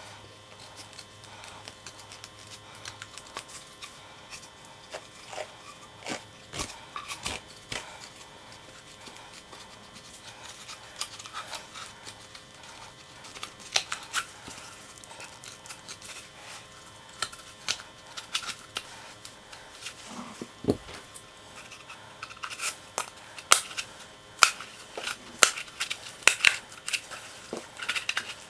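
Scissors cutting open a paint roller tube: scattered sharp snips and clicks that come faster and louder in the last several seconds.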